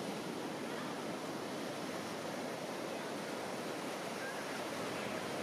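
Steady wash of ocean surf, an even rushing noise without rise or fall, with a few faint short chirps near the end.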